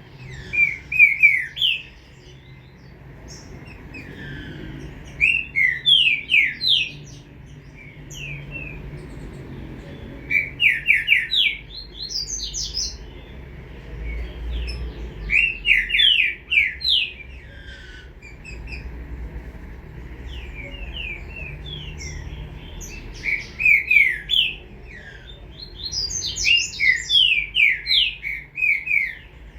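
Young green-winged saltator (trinca-ferro) singing: short loud phrases of a few quick clear notes, repeated every few seconds, over a faint low hum.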